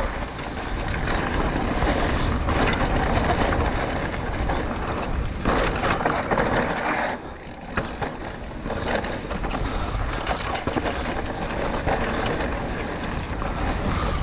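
Trek Rail electric mountain bike rolling down a dirt trail: tyre noise and the bike rattling and clattering over rough ground, with wind rumbling on the microphone. The noise drops briefly about seven seconds in, then picks up again.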